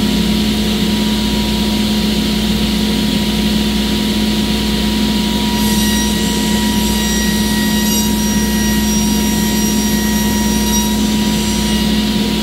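Table saw running steadily while a sheet panel is ripped along the fence; from about six seconds in to near the end the blade is cutting through the panel, adding a higher-pitched whine over the motor's hum.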